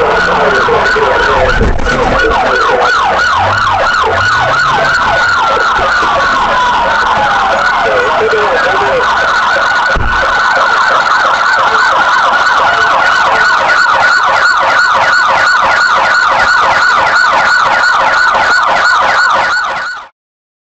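Police patrol car siren in a fast, rapidly repeating yelp, with a slower falling wail laid over it for a few seconds and two short thumps. The sound cuts off suddenly just before the end.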